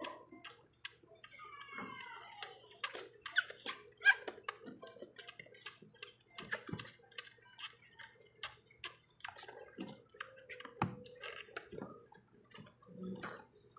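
Two-week-old pug puppy suckling milk from a feeding syringe: quick, irregular wet smacks and clicks of its mouth on the syringe tip.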